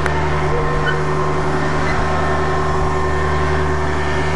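Small ride train running steadily, its engine giving an even, unchanging drone.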